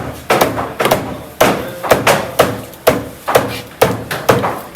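A heavy knife chopping through a large fish, cutting it into slices with quick, regular blows, about three sharp chops a second.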